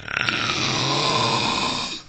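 A man's snore: one long, loud breath lasting about two seconds, with a low buzzing rattle under a breathy hiss, much louder than the quieter snoring around it.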